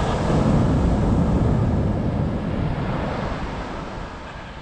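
Ocean surf: a breaking wave swells in the first second or two, then slowly washes out, with wind buffeting the microphone.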